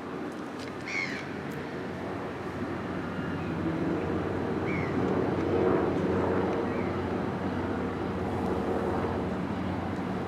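A boat's engine running with a steady low hum that grows louder a few seconds in and then holds, with short bird calls over it.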